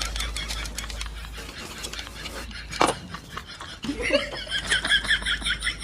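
Faint scattered clicks, then about four seconds in a burst of quick, rhythmic laughter.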